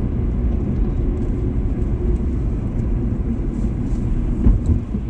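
Steady low road and engine noise from inside a small car moving at just under 30 mph, with a single thump about four and a half seconds in.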